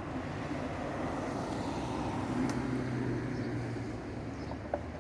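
Road traffic going past: a steady low rumble that swells about halfway through and then eases off, with a light click just past the middle.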